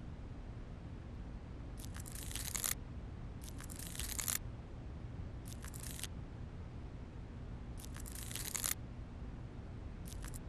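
Low steady room hum with five short, soft rustling hisses about every two seconds.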